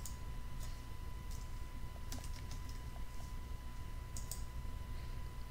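Typing on a computer keyboard: a scattered handful of quiet keystrokes, over a faint steady electrical whine.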